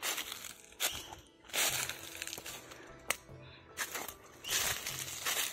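Dry leaves and brush crunching and crackling underfoot in a string of separate sudden bursts.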